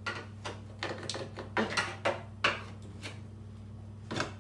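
Irregular clicks and knocks of hand tools working on fasteners behind a car's front wing, with one louder knock near the end. A steady low hum runs underneath.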